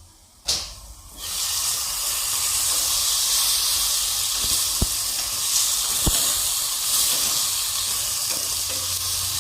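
Chicken pieces frying in hot oil in a pan. A sharp clank comes about half a second in, and then the sizzling turns loud and steady, with a couple of small pops later.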